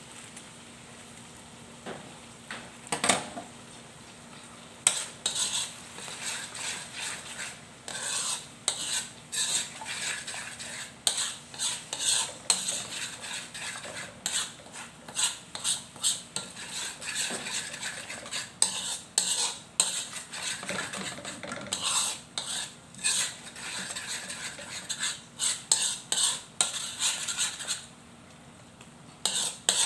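Metal spoon stirring and scraping thick red sauce around a metal wok, in many quick irregular strokes that begin about five seconds in and pause briefly near the end, over a faint sizzle of the hot sauce.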